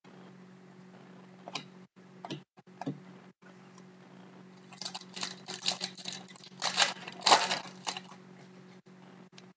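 Foil wrapper of a 2011-12 Pinnacle hockey card pack being handled and torn open. A few light clicks come first, then a run of crinkling and tearing about halfway through, loudest shortly before the end.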